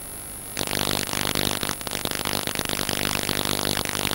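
FPV quadcopter's brushless motors spinning up to idle about half a second in, then holding a steady multi-tone electric whine with hiss.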